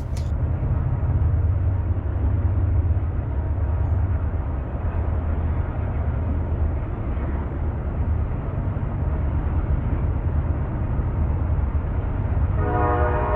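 A passing train's steady low rumble, with its horn sounding a held chord of several notes near the end.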